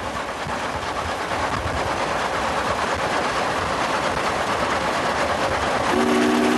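Union Pacific Challenger 4-6-6-4 articulated steam locomotive running at speed: a fast, dense stream of exhaust beats and running-gear noise that grows louder as it passes. Near the end its steam whistle sounds a steady three-note chord.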